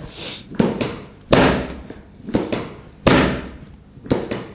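Three pairs of sudden thuds, a softer one followed by a louder one, the pairs repeating about every second and three-quarters, each thud ringing out briefly.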